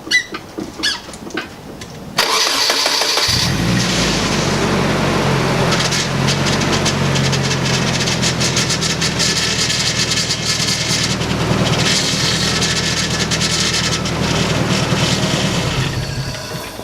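A few light clicks, then the Nissan 240SX S14's KA24DE four-cylinder engine cranks for about a second on a cold start, catches, and idles steadily. The sound falls away about a second before the end.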